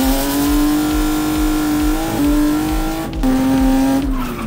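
BMW car engine revving hard under acceleration. The pitch climbs at the start, holds high and steady, changes briefly twice around two and three seconds in, and falls near the end.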